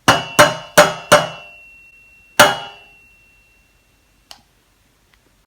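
An egg being rapped four times in quick succession against the rim of a bowl to crack it, then one more hard knock that leaves the bowl ringing with a clear tone fading over a couple of seconds.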